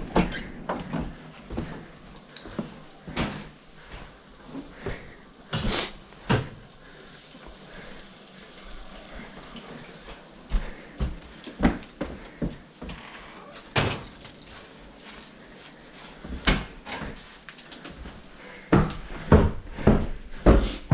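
Irregular knocks and bumps over a faint steady hiss, with a quick run of louder knocks near the end.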